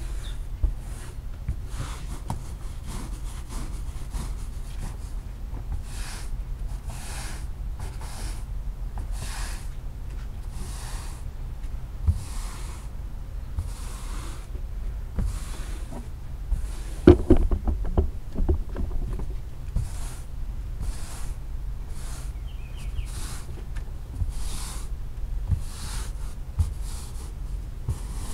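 Stiff-bristled push broom scrubbing a wet, soapy rug in back-and-forth strokes, about one a second. A cluster of sharp knocks about two-thirds through.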